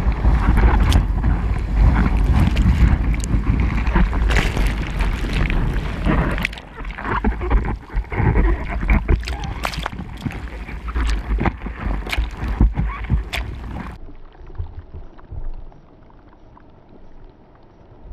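Seawater splashing and sloshing right against a waterproof action camera at surface level in the surf, with wind buffeting the microphone and many sharp splashes as broken waves wash over it. About fourteen seconds in the sound turns muffled and much quieter.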